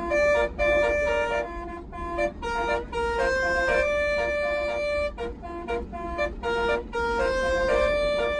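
A bus's multi-trumpet 'telolet basuri' air horn playing a melody, with several notes sounding together and the held notes changing pitch every half second or so, broken by short gaps. The low hum of the bus runs underneath.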